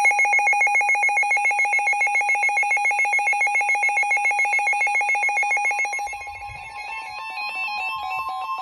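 Emergency alert tones: a loud electronic warble trilling rapidly between two pitches for about six seconds. It then fades into a steady single tone, with a falling run of stepped beeps over it.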